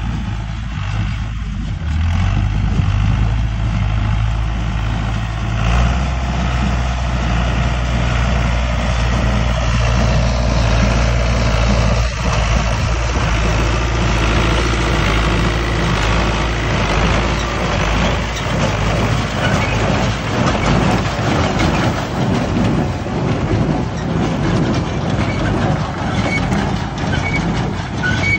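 Fiat tractor's diesel engine running steadily under load, pulling a Bamfords small square baler, with the baler's pickup and plunger mechanism clattering. The clatter grows louder over the second half as the baler comes close.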